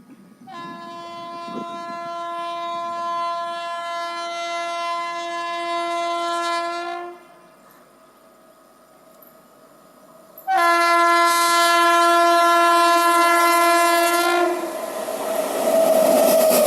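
WAP-7 electric locomotive's air horn sounding two long blasts, the first about six and a half seconds and growing louder, the second louder and about four seconds long. Near the end the train rushes past, with loud wheel-on-rail noise.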